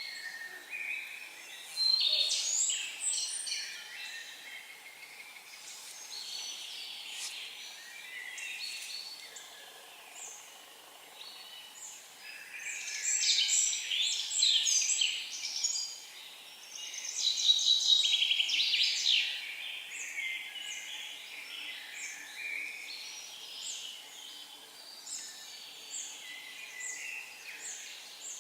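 Songbirds singing in forest, overlapping chirps and trills, with louder bouts of song about two seconds in and twice around the middle.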